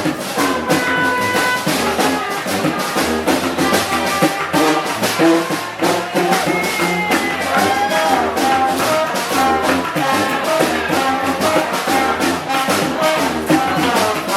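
Street brass band playing a Balkan čoček dance tune: brass horns carrying the melody over a steady drum beat.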